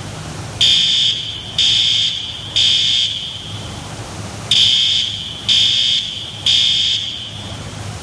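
Fire alarm sounding the temporal-three evacuation signal: two groups of three high beeps, each about half a second long, with a pause between the groups. Under it runs a steady low rumble from the high-expansion foam discharge.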